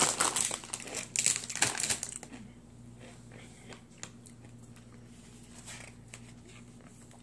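A foil potato-chip bag (Zapp's) crinkling as it is handled and folded, for about the first two seconds. After that, only a faint steady low hum.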